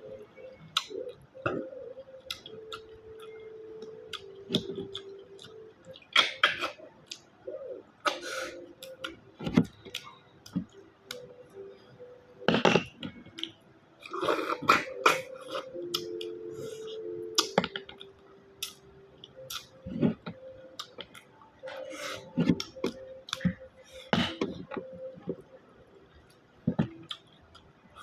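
Loud, irregular slurping and sucking as snail meat is sucked out of the shells, with wet mouth smacks and chewing between the sucks.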